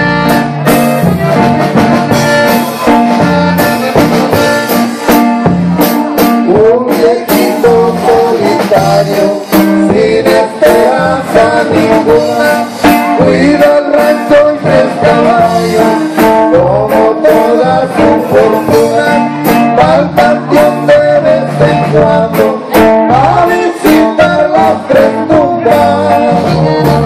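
Instrumental music with guitar and a melody line moving above it over a steady beat.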